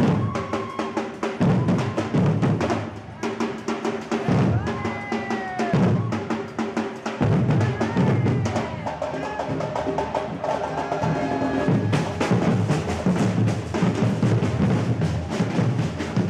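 Street band drumming: bass drum and snare drum playing a steady beat with rolls, with some held instrument notes above the drums.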